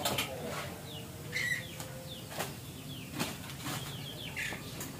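Krupuk crackers frying in hot oil in a large wok, a steady sizzle with frequent small crackles. Small birds chirp briefly several times alongside.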